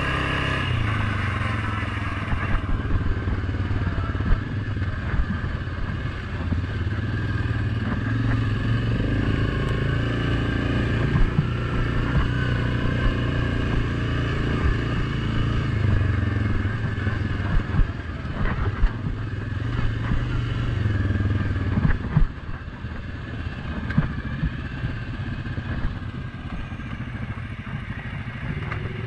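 Suzuki KingQuad 750 ATV's single-cylinder engine running under way, its pitch rising and falling with the throttle, with scattered knocks and rattles from the machine over the rough trail. The engine eases off about three-quarters of the way through.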